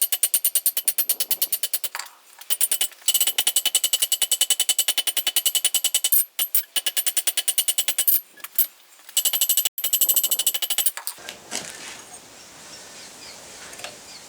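Hammer blows on hot mild steel over an anvil, forging the stock down, in fast, even runs with a high ring from the anvil. The runs break off briefly a few times and stop about eleven seconds in.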